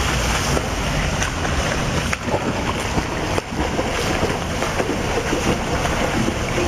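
Pool water splashing and churning as a swimmer swims front crawl, arms and kicks breaking the surface in a steady wash of irregular splashes.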